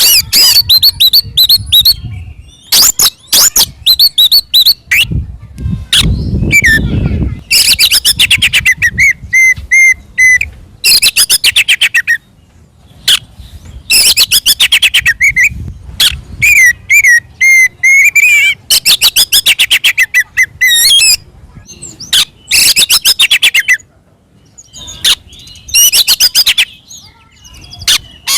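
Oriental magpie-robin (kacer) singing loud, rapid phrases of repeated high notes and short whistles, in bursts of a second or two with short pauses between them. This is the bird's aggressive fighting song, of the kind used to provoke other male magpie-robins into answering.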